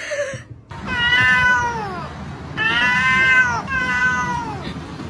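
A cat meowing three times in long, drawn-out calls, each falling in pitch at its end.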